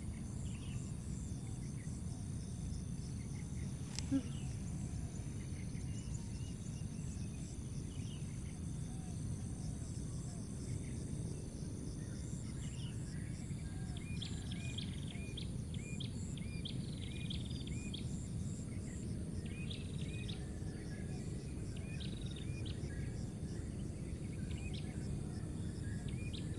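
Outdoor ambience of crickets trilling steadily, with a bird calling in a run of short repeated chirps through the middle, and a single sharp click about four seconds in.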